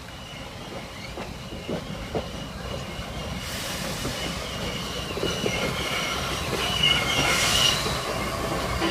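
Norfolk & Western 611, a J-class 4-8-4 steam locomotive, drawing closer and passing directly underneath, growing steadily louder. There is a hiss of escaping steam from about three and a half seconds in, and an intermittent high-pitched squeal of wheels on the rails that is strongest near the end.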